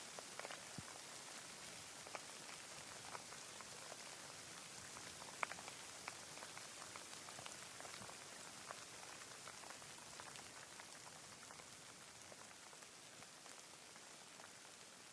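Steady rain: an even hiss with scattered individual drops ticking on a surface, one sharper drop about five seconds in, easing slightly toward the end.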